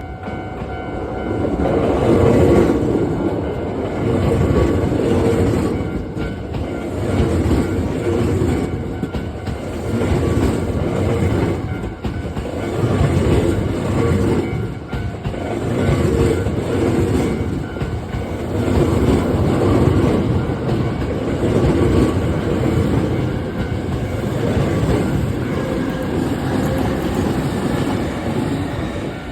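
Hankyu Kyoto Line electric train passing over a level crossing, its wheels clattering over the rail joints. The clatter swells and ebbs every two to three seconds and stays loud throughout, fading near the end.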